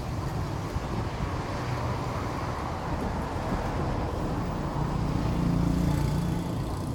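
Steady street traffic noise: a low rumble of passing vehicles and engines, swelling a little about five seconds in.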